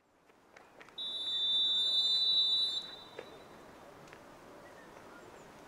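Referee's whistle, one long steady blast of just under two seconds, blown for kick-off, over the open-air hush of the pitch.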